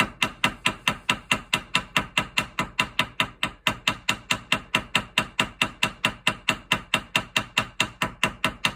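A small hammer tapping steel rapidly and evenly, about five light strikes a second, each with a short metallic ring: peening over the burred, mashed slot of a rusted-in shotgun action plate screw to move the metal back and close up the slot.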